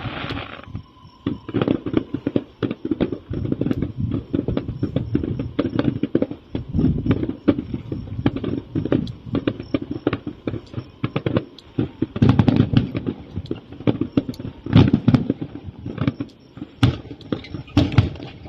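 Aerial fireworks going off in a dense, continuous barrage: overlapping booms and sharp cracks with a rumble beneath, swelling to its loudest bursts around the middle and near the end.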